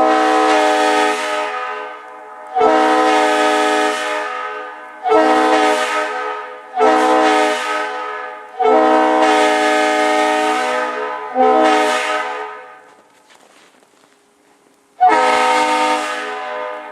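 Leslie locomotive air horn sounding a chord of several notes in seven blasts, each starting sharply and fading as it goes, with a pause of about two seconds before the last.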